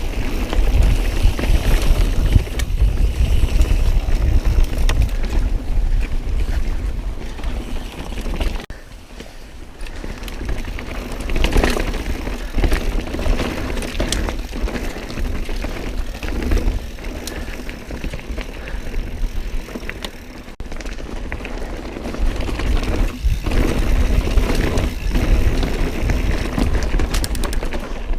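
Mountain bike ridden along a dirt trail: wind rumbling on the camera microphone and tyres rolling over dirt and rock, with scattered clicks and rattles from the bike. It eases off briefly twice.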